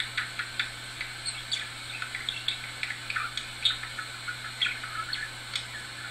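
Budgerigar chirping and chattering in short, irregular chirps, over a steady low hum.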